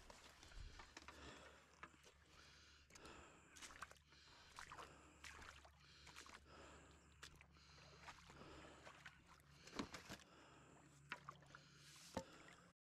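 Faint, scattered small knocks and light water sloshing around a loaded wooden canoe being handled in the shallows, the sharpest knock about ten seconds in.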